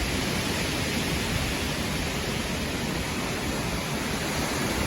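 Steady rush of a storm's wind and rain, with a low, fluttering rumble of wind buffeting the microphone.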